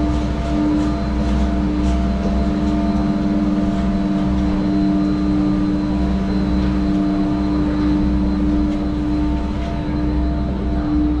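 Garaventa six-seat chairlift running, its machinery giving a steady hum over a low rumble.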